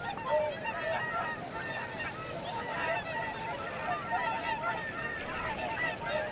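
A large flock of geese honking, many calls overlapping without a pause.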